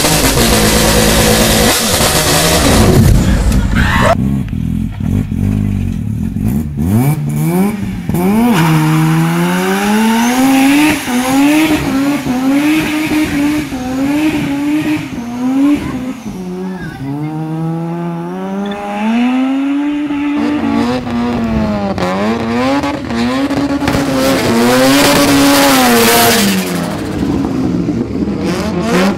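Rotary (Wankel) engine car revving again and again, its pitch rising and falling with each blip of the throttle. The first few seconds are a loud rushing noise over the engine, which then cuts off suddenly.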